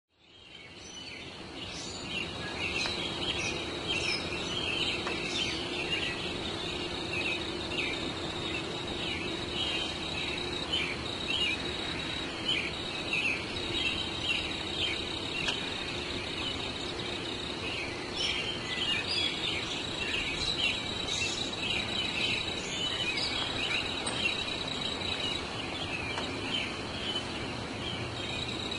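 Outdoor garden ambience: small birds chirping busily over a steady high insect trill, fading in over the first couple of seconds.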